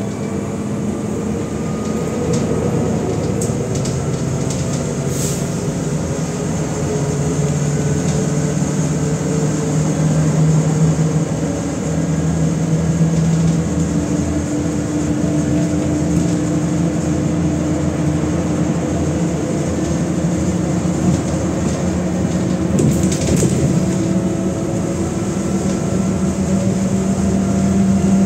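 MAZ-105 city bus running, heard from inside: a steady engine and drivetrain hum with road noise, its whine slowly gliding up and down in pitch. A few light clicks and rattles.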